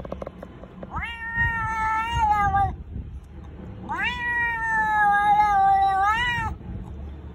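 A cat yowling at another cat in a territorial standoff: two long, drawn-out wavering calls, each opening with a rising swoop. The second call is longer and ends with an upward rise.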